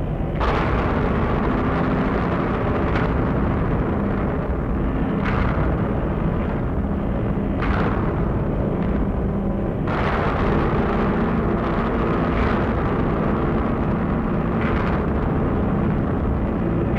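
Experimental psychedelic noise music from a 1960s vinyl record: a dense, rumbling wall of noise over a few low steady drone tones. A sharp swell of hiss comes about every two and a half seconds.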